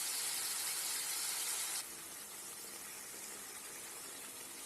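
Chicken pieces sizzling in hot oil in a kadai, a steady hiss that drops suddenly to a fainter hiss about two seconds in.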